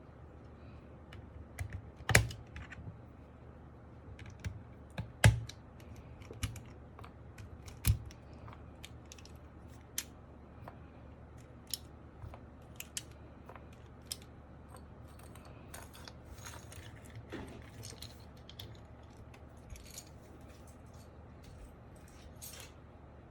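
Scattered clicks and clacks from a mechanical keyboard being worked on. There are sharp louder clacks about two, five and eight seconds in, then lighter, quicker ticking near the end.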